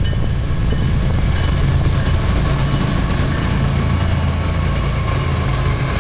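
Diesel engine of BNSF 6945, a GE ES44C4 diesel-electric locomotive, running as a steady low drone as the locomotive passes close by at the head of a double-stack intermodal train.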